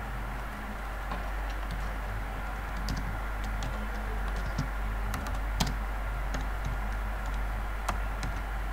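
Computer keyboard being typed on: scattered, irregular key clicks over a steady low hum.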